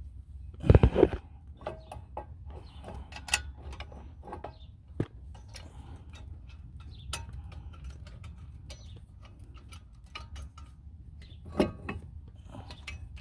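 Bolts, lock washers and hand tools being handled: scattered metallic clicks and ticks, with a louder clatter about a second in and another sharp knock near the end.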